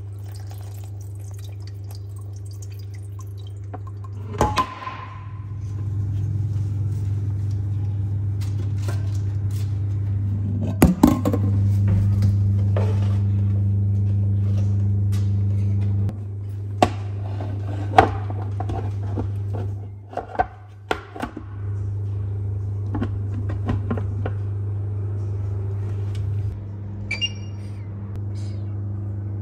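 Pots and lids knocking and clattering on a glass induction hob, with water poured into a pot, over a steady low hum. Near the end come short high beeps from the induction hob's touch controls as they are pressed.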